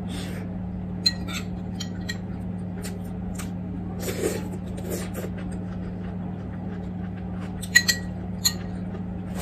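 A metal spoon clinking and scraping against ceramic bowls and dishes while eating, in scattered sharp clicks, the loudest three close together near the end. Soft mouth noises of eating come about four seconds in, over a steady low hum.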